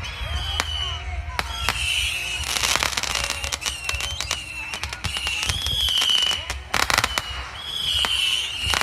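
Consumer fireworks going off: a rapid run of bangs and crackles, with short, wavering high whistles recurring every second or so.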